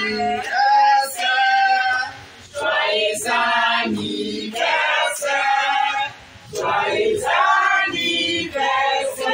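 A group of voices singing together in held phrases, with two brief breaks.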